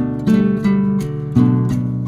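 Background music: acoustic guitar strummed and plucked in chords, a new chord about every half second.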